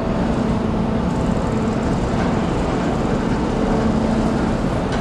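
Ship's engines running with a steady, even drone and hum as the ferry comes in to dock.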